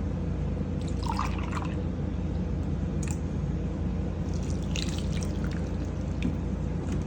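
Milk being poured and dribbling from a measuring cup into a bowl of flour, sugar and melted butter, over a steady low hum, with a few faint taps.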